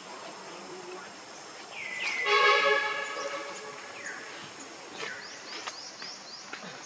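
A macaque gives a loud, harsh, pitched cry about two seconds in, lasting about a second. Near five seconds comes a quick run of short, high, rising chirps.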